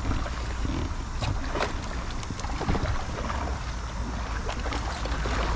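Wind rumbling on the microphone over open water while a hooked fish is fought from a kayak on a bent rod, with scattered sharp clicks and splashes.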